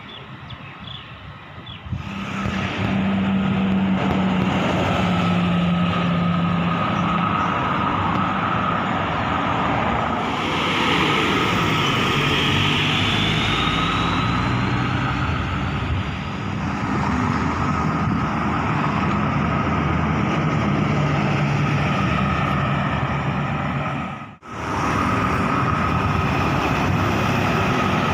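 Road traffic: buses and cars running and driving past, with a steady low engine drone and a brief rising whine partway through. The sound cuts out for a moment late on.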